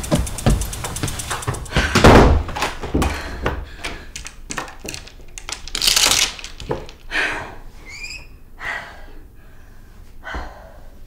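Wooden front door shut with a heavy thud, followed by a quick run of clicks as the lock and door chain are fastened, then short breathy exhalations.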